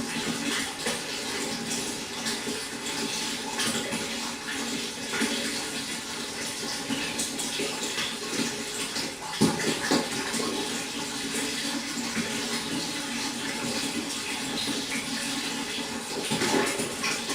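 Water running and splashing steadily into a pond, with small drips and splashes throughout and a slightly louder splash about nine and a half seconds in.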